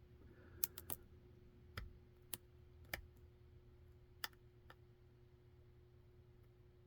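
Small, faint metallic clicks of a hook pick working the pin stacks of a Winkhaus 5-pin rim cylinder held under tension: scattered single ticks, about seven in the first five seconds, then the clicking stops.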